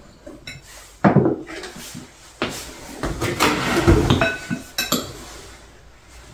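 Spoon and chopsticks knocking and scraping against bowls on a dinner table, in several separate clinks, with one ringing clink just after four seconds in.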